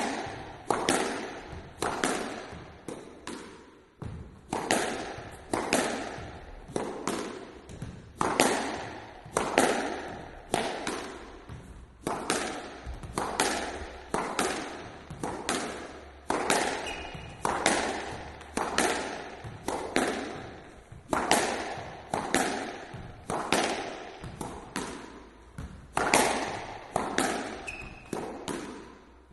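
Solo squash rally: the ball struck by the racket and hitting the walls over and over, a sharp crack every half second to a second, each ringing out in the court's echo.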